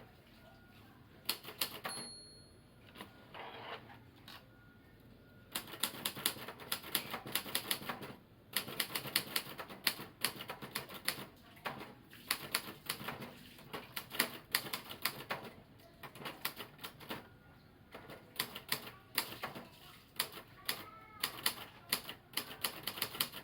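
Royal TA 240 typewriter being typed on: quick runs of key strikes in bursts with short pauses. Near the start the margin bell rings once, signalling the end of a line, and the carriage is then returned.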